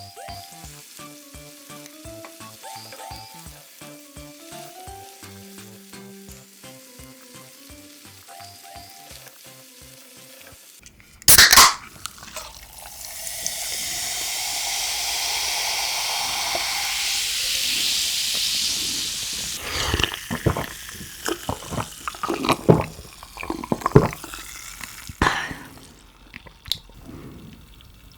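Light background music with a stepping melody, then a sharp clack and shrimp heads sizzling in butter in a frying pan, a steady hiss for about six seconds. Scattered clicks and taps of utensils on the pan follow.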